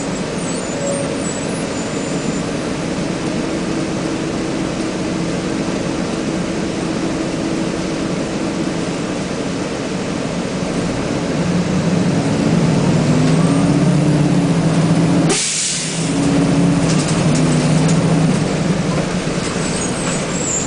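Detroit Diesel Series 50 engine of a 1999 Nova Bus RTS heard from inside the bus, running steadily. About halfway through it grows louder, its pitch rising and falling as it works harder. Near three-quarters through comes a short, sharp hiss of air, then the engine carries on.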